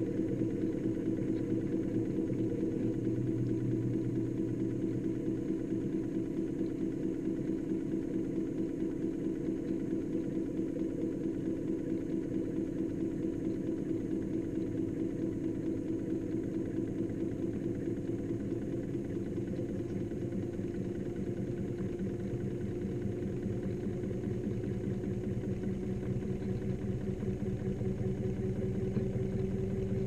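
Front-loading washing machine drum spinning, heard from inside the drum: a steady motor hum with a fast pulsing rattle, its pitch climbing slowly over the last ten seconds or so as the drum speeds up.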